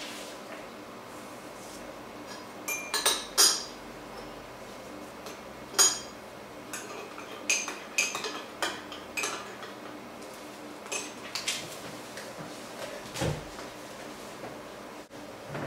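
Teaspoon clinking against a porcelain coffee cup while stirring: a series of sharp, irregular clinks, some in quick clusters. A low thump near the end.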